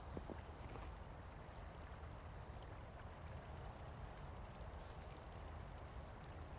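Faint night ambience: crickets chirping in a fast, regular pulse over a steady low rumble, with a couple of soft footsteps near the start.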